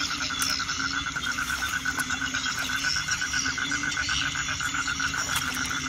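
Frogs calling in wet grass at night: a fast, even pulsing call that keeps going, over a low steady hum.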